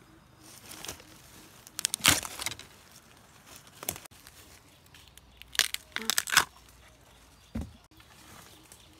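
Dry bamboo leaves and twigs crackling and rustling underfoot and under hand as a person moves through bamboo undergrowth. It comes in several short bursts, loudest about two seconds in and again a little past the middle.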